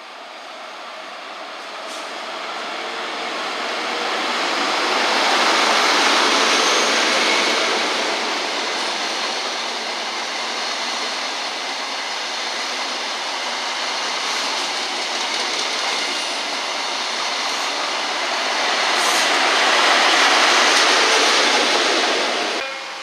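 A train running through the station on the rails, a dense rumble and rail noise that builds to a peak, eases, then swells again before cutting off suddenly near the end.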